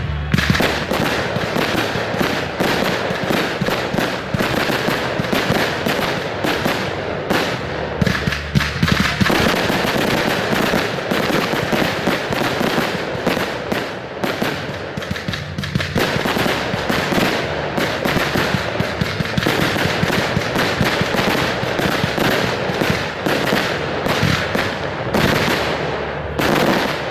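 Fireworks display: a dense, unbroken barrage of bangs and rapid crackling from aerial shells and crackle effects.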